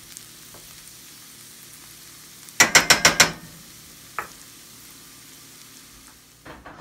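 Sliced pheasant back mushrooms and ramps sizzling softly in a cast iron skillet on a switched-off burner. A bit over two and a half seconds in, a metal spatula clacks sharply against the skillet about five times in quick succession, the loudest sound here; there is a single tap a second later and a couple more knocks near the end.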